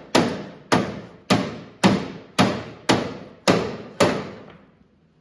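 A hammer striking car body sheet metal in a steady rhythm: eight blows about two a second, each ringing briefly as it dies away. The blows stop about four seconds in.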